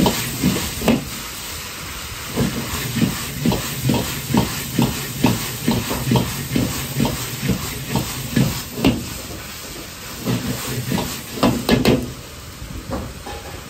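Stir-frying in a wok over a high gas burner: a steady hiss under rhythmic knocks of the ladle working the wok, about two a second, easing off near the end.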